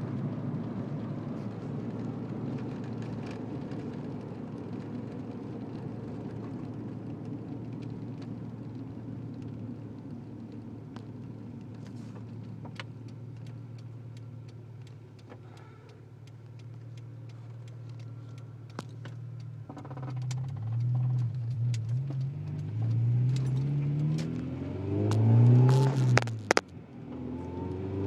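Integra's engine running steadily, with scattered light clicks or knocks. In the last third it speeds up and slows several times, a rising and falling engine note, and there is one sharp knock near the end.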